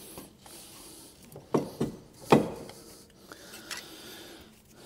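Light metallic knocks and clunks of a front drive shaft being pushed and worked in its wheel hub: three sharp knocks about one and a half to two and a half seconds in, the last the loudest, and a fainter click later.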